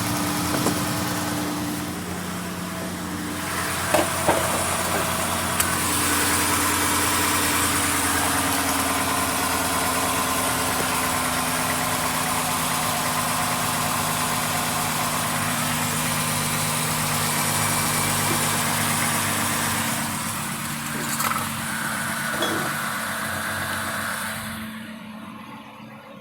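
2016 Dodge Grand Caravan's 3.6-litre Pentastar V6 idling steadily with the accessory drive belt removed, running without the noise it makes with the belt on: the owner puts that noise down to the alternator bearing. The engine is switched off near the end.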